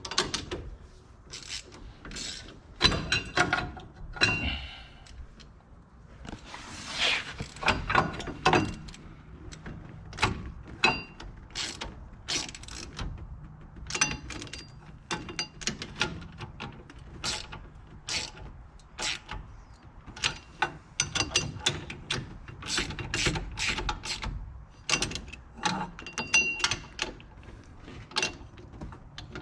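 Hand ratchet wrench clicking in short, irregular runs as the hub assembly's mounting bolts are run in by hand, with occasional light metal tool knocks.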